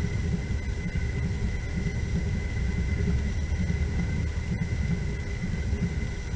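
Passenger train running at speed, heard from inside the carriage: a steady low rumble with a faint, steady high whine over it.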